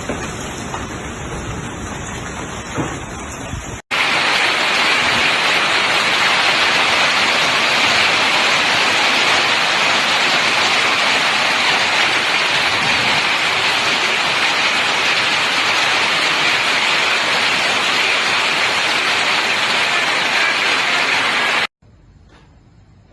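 Heavy rain pouring in a steady, even hiss, starting abruptly about four seconds in and cutting off just before the end. Before it, a low, rumbling gusty noise is heard; after it, a much quieter stretch with a few faint knocks.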